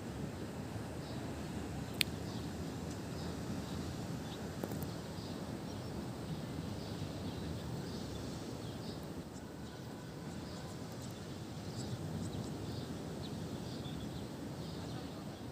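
Steady low rush of sea surf and wind at the shore, with faint short bird chirps scattered through it and one sharp click about two seconds in.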